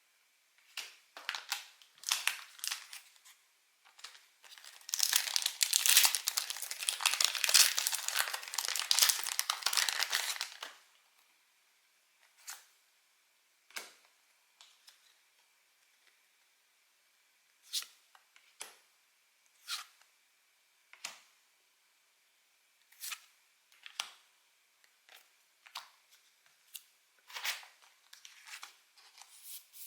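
Foil wrapper of a Pokémon booster pack crinkling and then tearing open, a dense stretch of tearing and crinkling lasting about five seconds, followed by sparse short clicks and crinkles as the wrapper and cards are handled.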